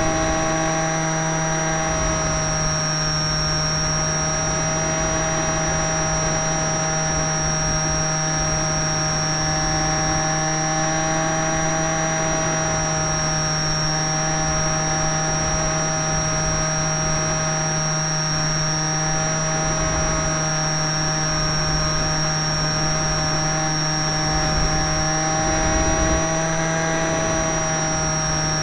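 Motor and propeller of a radio-controlled canard model plane running at a steady speed, heard close up from a camera on board: a constant high whine over a lower drone, with wind rumbling on the microphone.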